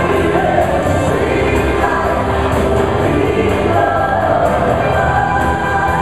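Several singers singing together over a live band and orchestra, with a steady beat.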